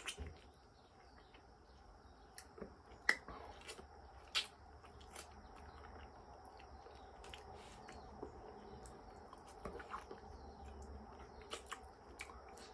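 Durian flesh being eaten close to the microphone: soft wet chewing and mouth smacks with short clicks at irregular intervals, the sharpest a few seconds in. A faint steady high tone runs behind.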